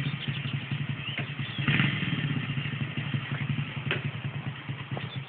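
Quad bike (ATV) engine running at low revs as the quad creeps across a lawn, with a brief rise in revs about two seconds in.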